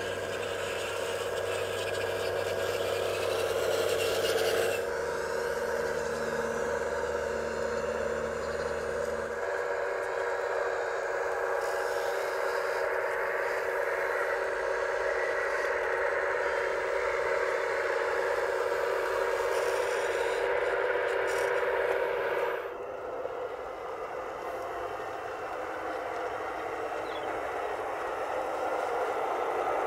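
Radio-controlled hydraulic model machinery: a steady whine of the electric hydraulic pump and motors, with rattling and scraping. The sound changes abruptly three times.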